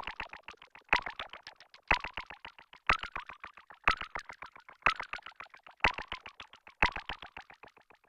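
Moog Animoog Z software synthesizer playing its "Drip Drops" preset with the arpeggiator on. A bright, plucky note sounds about once a second, and each one trails off in a quick run of dripping repeats. The pattern fades out near the end.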